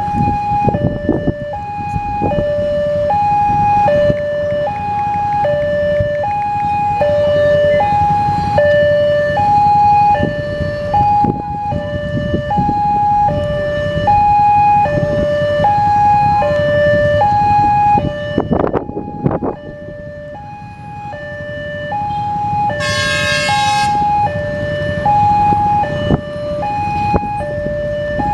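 Railway level-crossing warning alarm: an electronic two-tone signal alternating high and low about once a second, over road traffic. It signals that a train is approaching and the crossing is closed.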